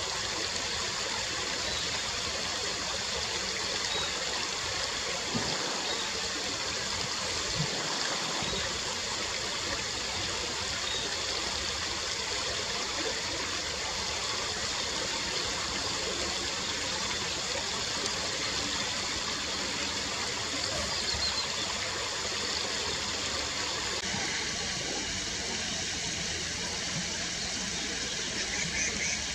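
Shallow stony creek flowing over rocks: a steady sound of running water.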